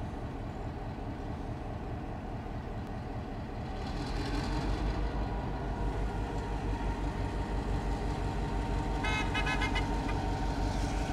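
EMD GP38-2 locomotive's 16-cylinder diesel engine running, throttling up about four seconds in so that its low rumble grows louder and pulses. A brief high rattling sound comes about nine seconds in.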